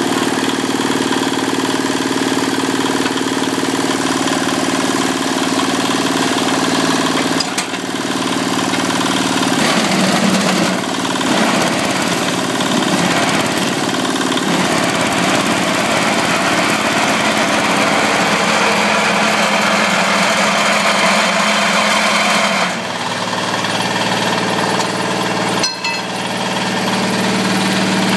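Small single-cylinder diesel engine powering a concrete block-making machine, running steadily. From about ten seconds in it turns harsher and noisier, and it settles back near the end. There is one short click a few seconds before the end.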